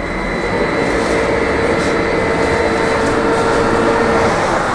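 Inside a moving trolleybus: the steady whine of the electric traction drive over road and tyre noise. The whine eases off near the end.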